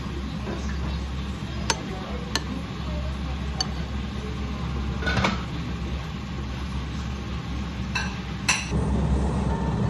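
A metal spoon clinks against a ceramic bowl as rice and egg in thin sauce are scooped up, giving a handful of light, sharp clinks spread over several seconds. Under it runs a steady low hum.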